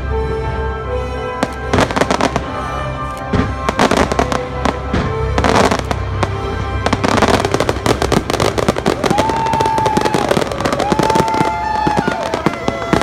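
Fireworks going off in quick succession, many sharp bangs and crackles, over loud background music.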